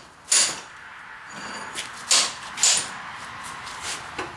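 Rusty screw of a blacksmith's leg vise being turned by its handle after electrolysis, giving a few short scraping creaks as the once-seized screw starts to move.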